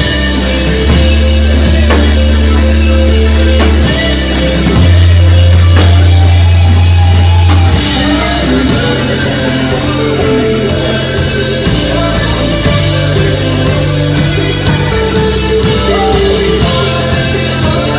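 Live rock band playing, with drums, guitars and very heavy held bass notes. About eight seconds in the deep bass drops back and the music moves into a busier passage with changing notes.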